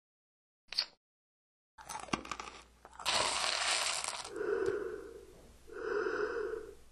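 Dry snack being chewed with loud crunches. About three seconds in there is a rattling rustle of a hand digging into the bowl of the snack, followed by two short bursts of crunching near the end.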